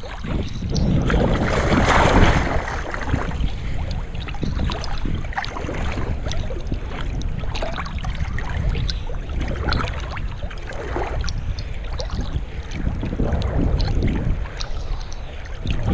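Lake water sloshing and splashing around a GoPro held at the surface during a swim, with a low wind rumble on the microphone and many small drips and splashes. A louder wash of water comes about two seconds in.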